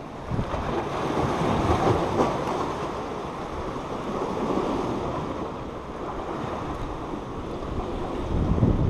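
Surf washing against jetty rocks, with wind buffeting the microphone; a louder gust of rumble near the end.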